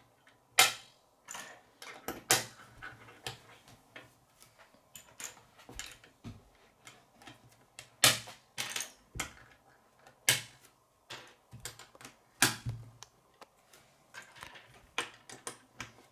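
Plastic K'nex rods and connectors clicking and snapping together, with pieces knocking on a wooden tabletop: an irregular string of sharp clicks with a few louder snaps spread through.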